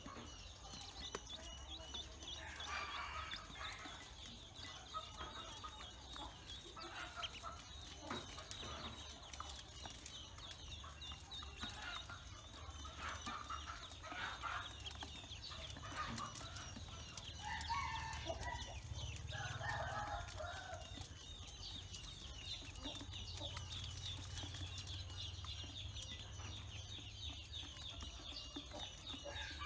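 A group of Pekin ducklings peeping together, a dense stream of rapid, overlapping high peeps with louder bunches of calls now and then, over scattered clicks of bills pecking at feed in a metal basin.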